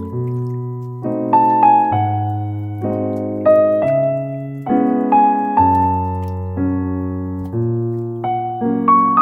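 Background piano music: gentle chords and a simple melody, notes struck about once a second and left to ring out.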